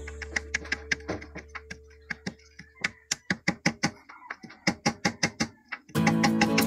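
A ball-peen hammer taps a seal into its bore in an aluminium automatic transmission case: quick light taps, about five a second, that stop about six seconds in. Background music fades out at the start, and guitar music comes back in near the end.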